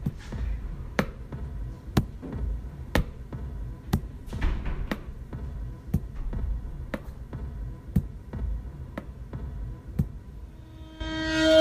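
Sharp ticks about once a second over a low throbbing hum. Near the end a loud, steady siren-like tone swells in.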